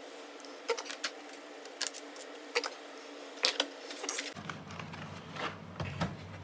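Irregular small clicks and taps of screws and a screwdriver being handled against a laptop's plastic case, over a faint steady hum.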